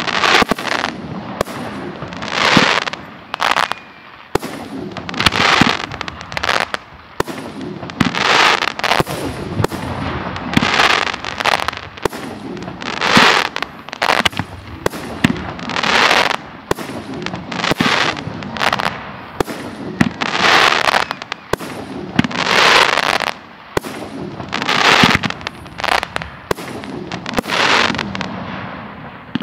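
Professional fireworks display of F3 fireworks and aerial shells: loud bursts come one after another about every two to three seconds, with sharp bangs in between.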